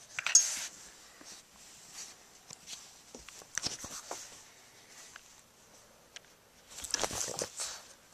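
Bulldog puppy scuffling and mouthing close to the microphone: irregular rustles, scrapes and clicks, loudest just after the start and again about seven seconds in.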